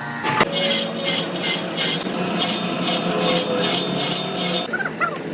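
Hand metalwork on a steel axe head: a sharp knock, then regular scraping and clinking strokes at about three a second that stop abruptly near the end.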